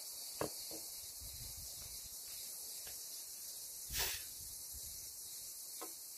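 Light handling sounds as equipment is set down on dry ground: a small click about half a second in, a louder knock about four seconds in, and another light click near the end, over a steady high hiss.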